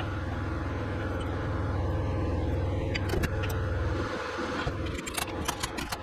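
Drill running, boring out a seized brass pipe plug in a dozer's transmission pressure port; it stops about four seconds in, followed by a string of sharp metallic clicks and knocks.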